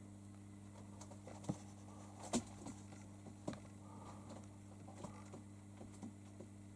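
Faint steady electrical hum, with scattered soft clicks and taps at irregular intervals, the loudest a little over two seconds in.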